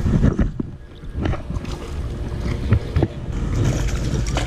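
A hooked peacock bass splashing at the surface beside a bass boat, with a few short knocks, over a steady low rumble of wind on the microphone.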